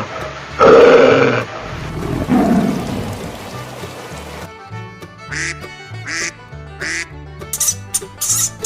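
Duck quacking loudly, two long calls in the first second and a half, followed by a lower, rougher sound. Background music with sharp percussive strokes comes in about halfway through.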